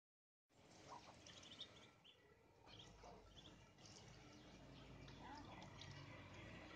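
Faint, high-pitched peeping of Muscovy ducklings: a scatter of short peeps in the first three seconds or so, over quiet background noise.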